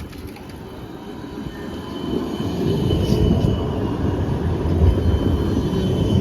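Low rumble of a vehicle in motion, growing louder about two seconds in, with a faint steady high whine above it.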